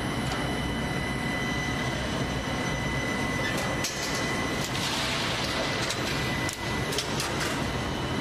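Four-strand PVC conduit pipe extrusion line running: a steady machine drone with a few fixed whining tones. A handful of sharp clicks come about four and about seven seconds in, and a short burst of hiss about five seconds in.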